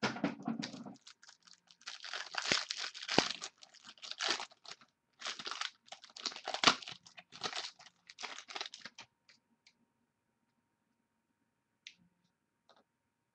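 Trading card pack wrapper being torn open and crinkled by hand: dense crackling and tearing for most of the first nine seconds, then it stops, leaving only a couple of light clicks from card handling.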